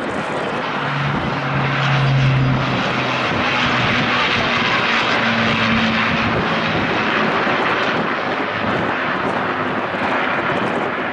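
Avro Lancaster bomber in flight, its four Rolls-Royce Merlin piston engines running with a loud, steady multi-tone propeller-engine sound that peaks about two seconds in.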